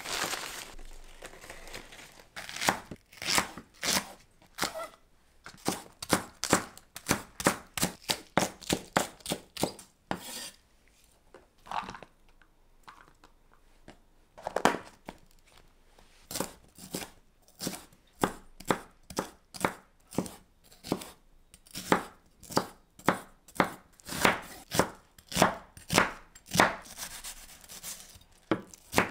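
Kitchen knife chopping green onions and then an onion on a wooden cutting board, with steady strikes about two a second and a short pause partway through. Near the start the newspaper wrapping rustles.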